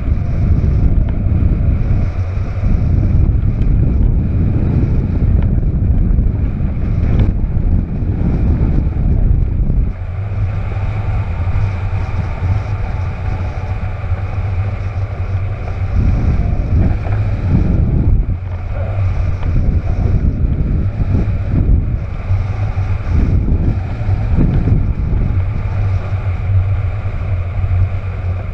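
Airflow buffeting the microphone of a camera mounted on a hang glider in flight: a loud, steady wind rumble that eases about ten seconds in, then gusts back up several times.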